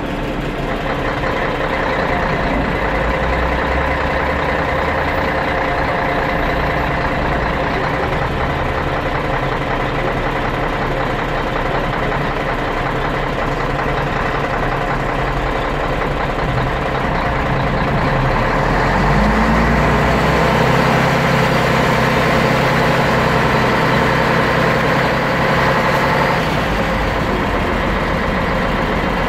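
Scania DSC 11.71 11-litre six-cylinder diesel of a 1997 Scania CN113CLL city bus idling, heard from inside the rear of the passenger cabin. About two-thirds of the way through, the engine note rises and holds higher for several seconds, then settles back.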